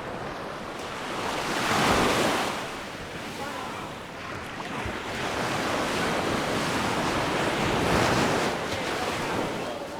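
Sea waves breaking and washing up the shore, the surf swelling about two seconds in and again near eight seconds, with wind on the microphone.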